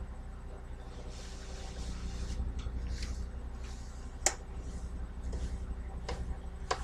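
A cloth being wiped over a stovetop in repeated soft swishing strokes, drying it after washing. There is one sharp click about four seconds in and two fainter ones near the end, over a steady low hum.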